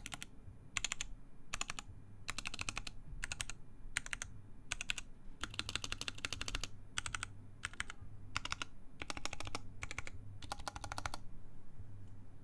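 Typing on a Cannon Keys Savage65 mechanical keyboard with stock, unlubed JWK Lilac linear switches in a full FR-4 plate: keystrokes come in short quick bursts with brief pauses between them and stop near the end.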